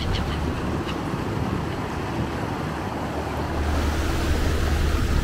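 Steady low rumble and rushing of wind and lake water around a moving boat.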